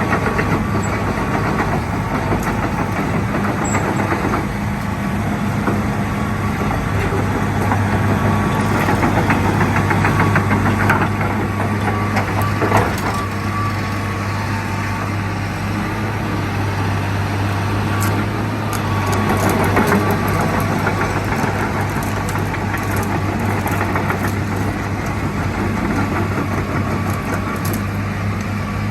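Hitachi EX225USR excavator's diesel engine running steadily at a constant speed, with a single sharp knock about halfway through.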